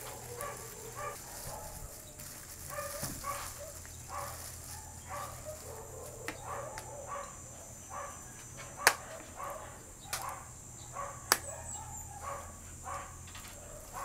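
An animal's short, soft calls, repeated about twice a second, over a low steady hum. Two sharp clicks in the second half are the loudest sounds.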